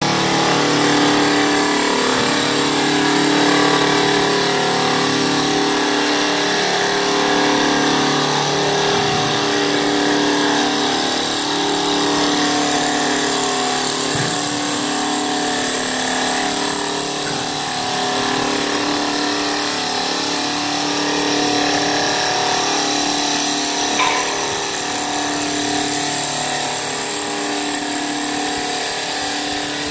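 Double-axis CNC wood turning lathe running, two wooden blanks spinning as its cutters turn them into beaded spindles: a steady motor hum under a constant hiss of cutting.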